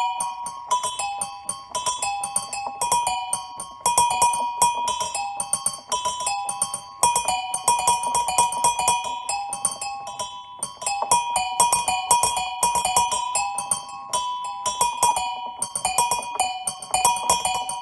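Small bells of a personal bell tower rung in a quick repeating pattern, several clear ringing strokes a second on two or three alternating pitches.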